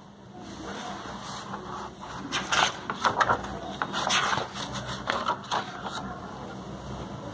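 Pages of a paperback art book being turned, with paper rustling and several short flaps as the leaves go over. A steady low hum runs underneath.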